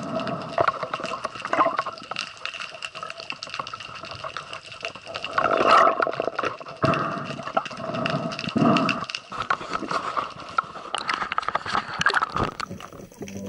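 Water noise heard through a diver's camera housing: dense crackling clicks and water rushing, with louder gurgling surges around six and nine seconds in. A steady whine of a few fixed tones sits underneath.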